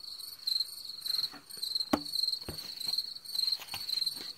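Crickets chirping in a steady, pulsing rhythm, with a few soft knocks, the sharpest about two seconds in.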